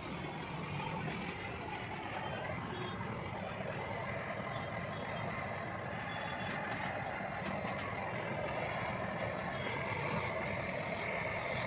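Handheld butane cartridge torch burning with a steady hiss while brazing the copper pipe joints of a new condenser coil.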